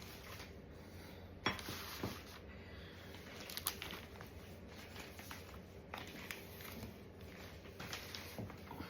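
Faint crinkling and rustling of plastic bags and packaging being handled, with a few light clicks and knocks scattered through.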